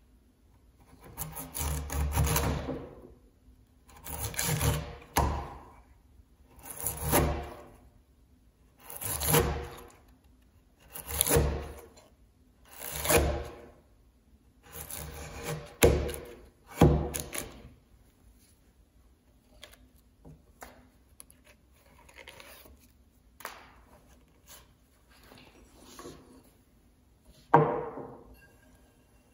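Large framing chisel pushed by hand down the walls of a mortise in a timber beam, paring wood. There are about seven long scraping strokes roughly two seconds apart, each swelling and fading, then two sharper knocks and several fainter strokes, with one sharp knock near the end.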